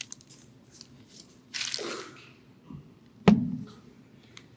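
Faint rustling and small clicks, with one sharp knock about three seconds in that has a short low boom after it.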